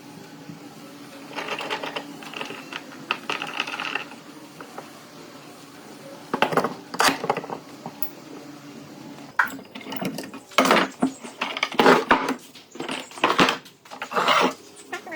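Hand woodworking on pallet wood: a run of sharp knocks and scraping strokes, sparse at first and coming thick and fast in the last few seconds, over a steady low hum.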